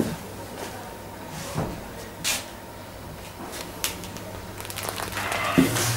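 Scattered knocks and clicks of people moving about inside a ship's interior, busier near the end, over a steady low hum.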